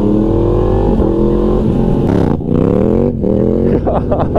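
Yamaha MT-series motorcycle engine accelerating hard through the gears: the pitch climbs steadily, drops sharply at each upshift about two, three and four seconds in, then climbs again.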